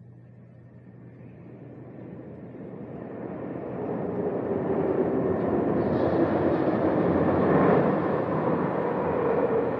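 Audio-drama sound effect of an automated underground train approaching the platform: a rush of rail noise that builds over the first few seconds and then holds, with a steady whine that drops slightly in pitch near the end.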